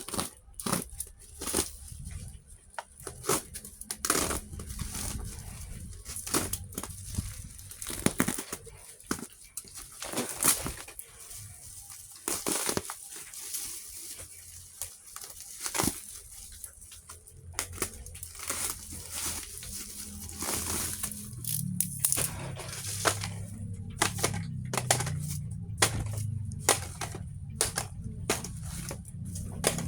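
Plastic packaging crinkling and rustling, with irregular clicks and taps as small plastic LED stick-on lamps are handled and counted out of a parcel.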